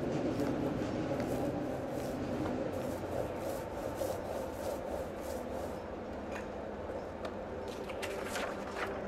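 Repeated light rubbing strokes over a steady low hum.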